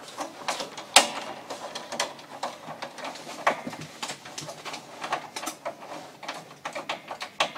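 Irregular clicks, taps and light scrapes of electrical wires and a screwdriver being worked inside a metal breaker panel, the sharpest click about a second in.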